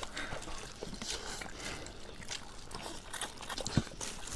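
Several people eating noodles, with short wet slurps and chewing sounds and one sharper, louder sound a little before the end.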